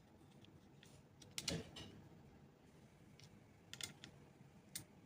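Faint clicks and taps of small computer parts and tools being handled inside an open mini PC: the loudest cluster comes a little over a second in, with a couple more single clicks near the end.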